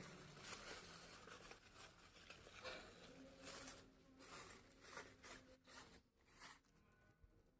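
Near silence, with faint scattered rustles and light ticks.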